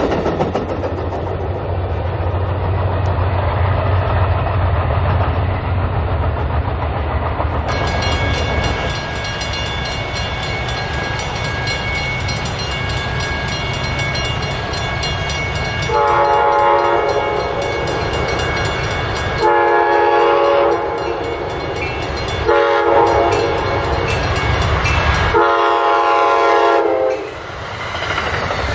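A train rumbles past at first. About eight seconds in, grade-crossing bells start ringing steadily. From about halfway, an Amtrak train's horn sounds the long-long-short-long crossing signal, and the train then rushes past near the end.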